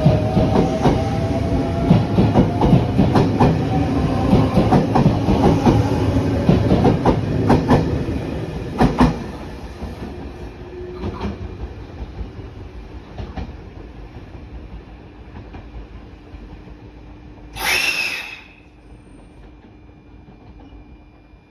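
383 series electric limited express train pulling away, its wheels clicking over rail joints under a faint, slowly rising whine, the rolling noise fading after about nine seconds as it moves off. Near the end a short, loud hiss lasts under a second.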